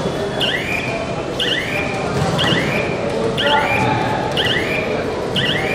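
Background talking of many people at a sports venue, with a high, rising chirp repeating about once a second over it.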